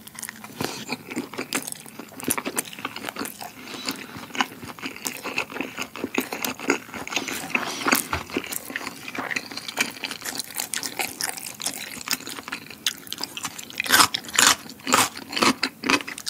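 Close-miked chewing of a chewy rice-paper wrap filled with spicy Buldak fire noodles and cheddar cheese: many small clicks and mouth smacks, louder over the last two seconds or so.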